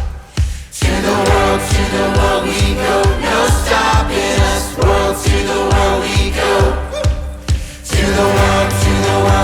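Music with a steady beat and a choir-like vocal sound. It briefly drops out just after the start and again shortly before the end.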